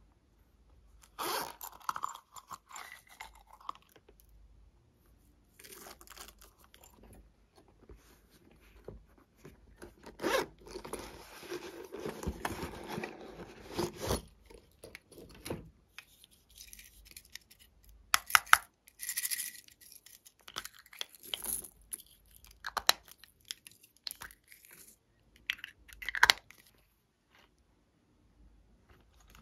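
Hands handling small silicone coin purses and toys over a glass dish of slime: a string of rustles, scrapes and sharp clicks, with a denser scratchy stretch about ten seconds in.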